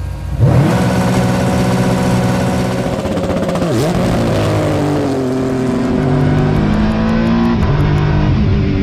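Acura NSX GT3 Evo race car's twin-turbo V6 launching hard from a standstill, the hand clutch dumped at redline. It comes in suddenly about half a second in, then runs at full throttle with the pitch climbing and dropping at gearshifts.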